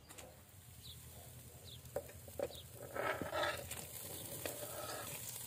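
A few light knocks, then diced pickled cucumbers scraped off a wooden cutting board with a metal skimmer into a cast-iron kazan of hot broth.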